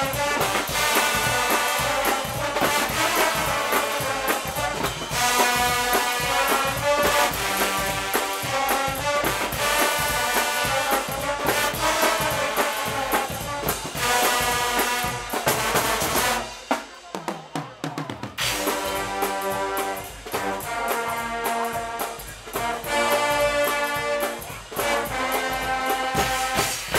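Guggenmusik band playing: massed brass (trumpets and trombones) over a drum kit and drums. The band drops out for about two seconds about two-thirds of the way through, then comes back in.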